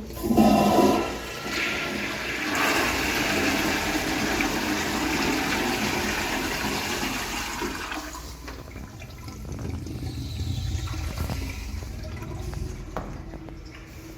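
Old Standard toilet flushing: a sudden loud rush of water that lasts about eight seconds, then quieter water running as the toilet refills.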